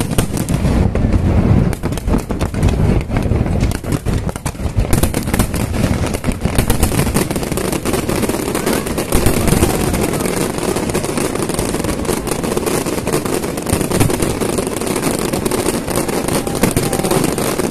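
Fireworks display: a dense, continuous barrage of bangs and crackling from many shells bursting in quick succession.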